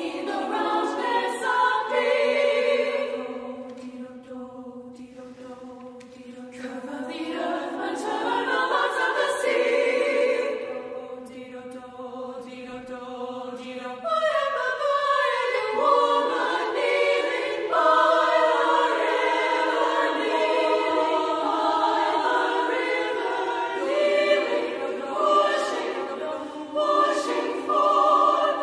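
Women's choir singing a cappella: long held chords that swell and fade twice, then a louder, busier passage from about halfway through.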